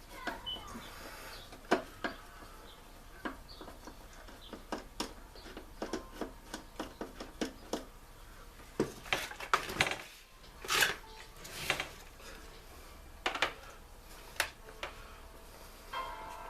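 Scattered clicks, clinks and knocks of hand tools and metal chainsaw parts being handled during disassembly, with a busier stretch of clatter and scraping about two-thirds of the way through. Background music begins right at the end.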